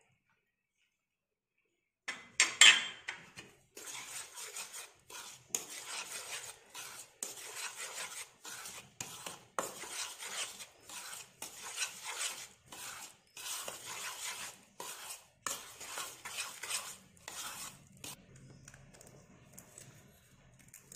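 Metal spoon stirring thick chocolate cake batter in a bowl, mixing the flour and cocoa with oil. It starts about two seconds in with a loud clatter of spoon on bowl, then scrapes against the sides in short strokes about twice a second, getting fainter near the end.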